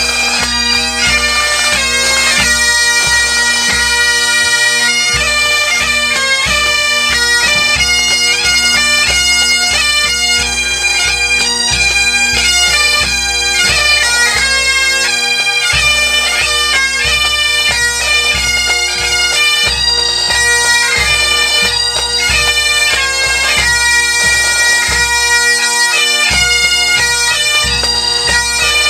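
Scottish pipe band playing a tune: Great Highland bagpipes carrying the melody over their steady drones, with drums beating underneath. The drum beat drops out briefly a few times.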